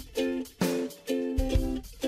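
Background music: a plucked string instrument strumming chords in a steady rhythm, with a low drum beat underneath.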